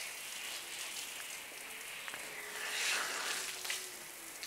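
Water running from a wash-bay hose or tap, a steady hiss that swells briefly about three seconds in.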